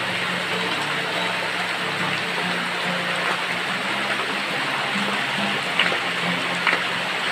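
Acoustic guitar music with low held notes that change every half second or so, over the steady rush of a small waterfall and stream. Two short sharp clicks come near the end.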